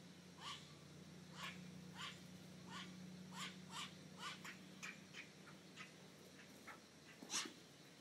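Faint series of short, sharp animal calls, about two a second, the loudest near the end, over a low steady hum.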